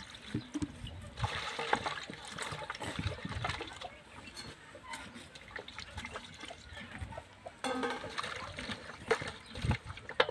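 Water splashing and trickling, with many small knocks and clicks.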